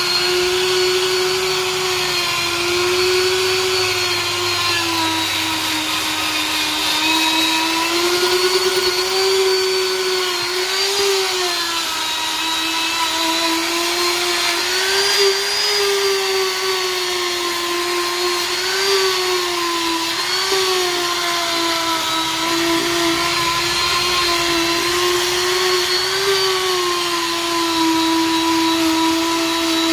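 Handheld die grinder with a small grinding stone buffing the inner liner of a car tyre, a steady high whine whose pitch dips briefly each time the stone is pressed harder into the rubber.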